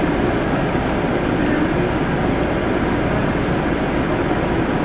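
A PATH rapid-transit train running at speed, heard from inside the car: a steady rumble of wheels on rail with an even low hum.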